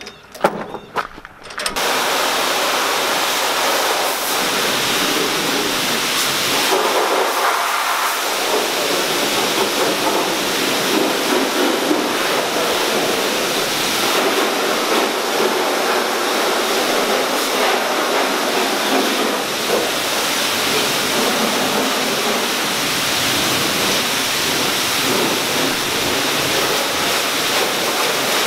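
A few clicks of a ratchet chain binder being tightened on the trailer's tie-down chains, then, about two seconds in, a pressure-washer wand starts spraying water onto the tractor with a loud, steady hiss.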